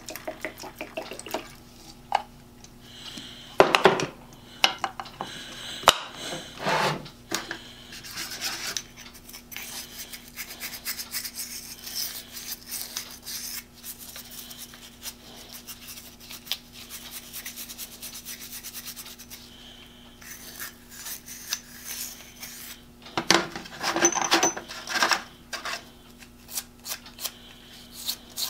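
Cotton swab scrubbing small parts in a plastic tray, a scratchy rubbing broken by occasional knocks and clicks as the parts and tray are handled, with quick ticks near the end. A steady low hum runs underneath.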